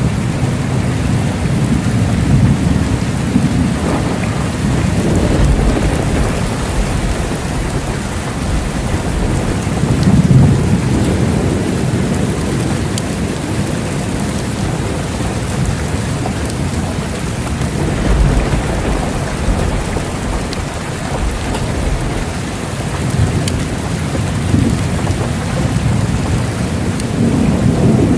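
Steady heavy rain with thunder rumbling several times, the low rolls swelling and fading under the constant hiss of the rain.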